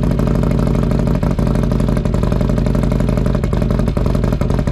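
Harley-Davidson Milwaukee-Eight V-twin, freshly bored out to 128 cubic inches, running steadily with a fast, even low pulse, moments after its first cold start since the build.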